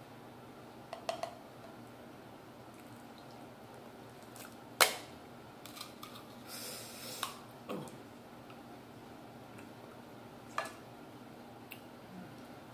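King crab leg shell being cracked and pulled apart by hand: a few sharp cracks and snaps with small clicks of shell between them, the loudest crack about five seconds in, and a short rustle a little after.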